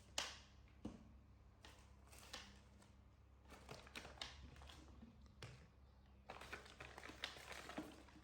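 Faint scattered taps and crinkly rustles of handling, coming thicker about six to eight seconds in.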